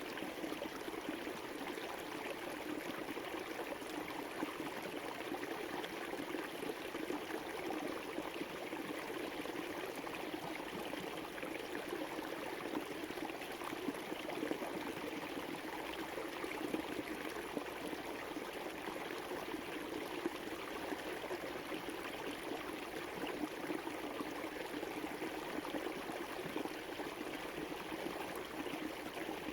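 River water flowing steadily over rocks, an even rushing and babbling with no breaks.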